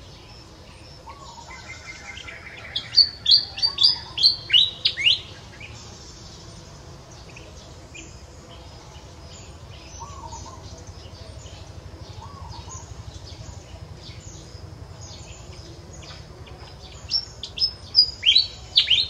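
Wild bird calls: two bursts of loud, rapid chirps, each a quick run of notes sweeping downward in pitch, the first about three seconds in and the second near the end. Between them a softer short call repeats every few seconds over a low steady hum.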